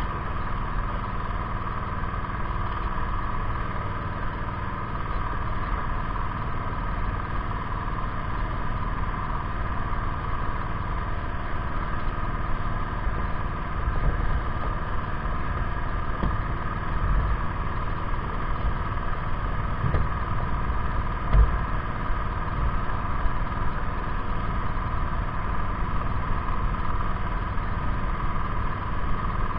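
Engine running steadily, a constant drone, with a few low thumps past the middle.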